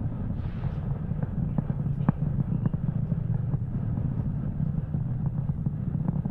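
Falcon 9 first stage's nine Merlin 1D engines burning during ascent: a steady low rumble with a dense crackle through it.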